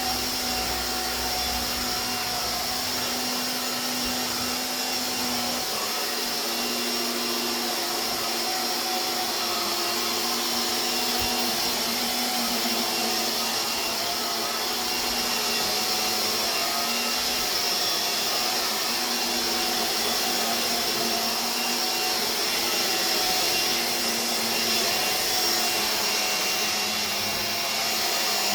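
Hoover Air Cordless BH50121 cordless vacuum cleaner running steadily: a continuous airflow rush over a motor hum whose few tones waver slightly in pitch.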